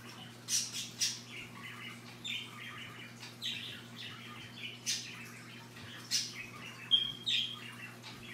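Scarlet macaw giving short, sharp squawks and chirps at irregular intervals, with a brief whistled note about seven seconds in.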